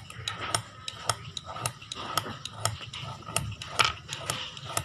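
A thin metal pin scratching and striking the surface of a small dark metal pot, which the owner takes for black copper, in quick even strokes: a sharp metallic click about four times a second, as the metal is tested.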